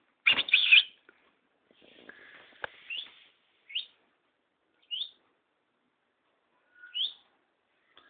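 Small pet bird calling: a loud burst of chirps near the start, then three short single chirps rising in pitch, each a second or two apart.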